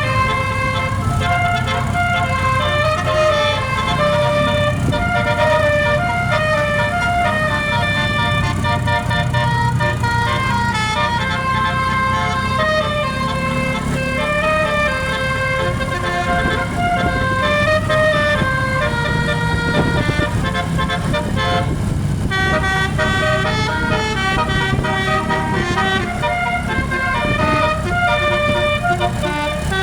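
Telolet basuri horn on a Sanjaya bus playing a tune of changing horn notes without a break, over the bus engine running.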